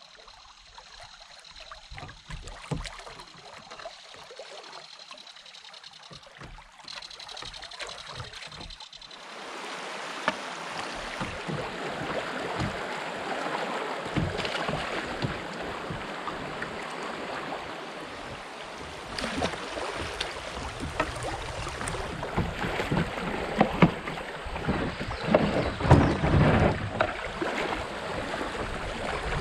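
Shallow creek water rushing over gravel as a kayak runs a riffle, getting louder about nine seconds in, with scattered knocks from the hull or paddle.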